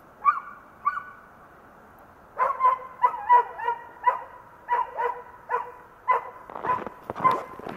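Search dog barking to announce that it has found the hidden person, a trained bark indication. Two single barks come first, then after a short pause a steady run of barks about two a second.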